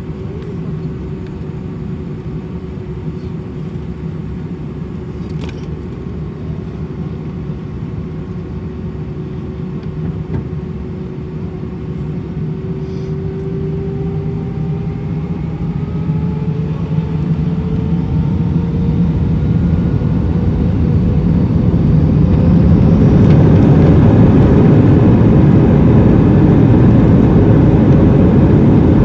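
Airbus A320's twin turbofan engines heard from inside the cabin, spooling up for the takeoff roll: a steady whine begins to rise in pitch about halfway in, and the engine noise grows much louder into a heavy rumble over the last several seconds.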